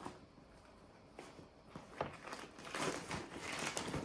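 Items being handled and moved about: a few light knocks and clicks, then rustling that grows busier over the last two seconds.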